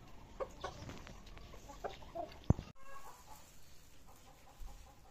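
Chickens clucking faintly and intermittently, with a few short knocks and one sharp thump about two and a half seconds in.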